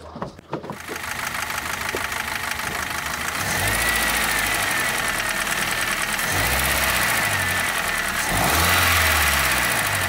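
Hyundai Grand Starex's 2.4-litre G4KG petrol four-cylinder engine running, heard close up under the open hood, with a light knocking ("постукивание"). The knock comes with scoring on the walls of all four cylinders. The engine gets louder about three and a half seconds in and swells again briefly near the end.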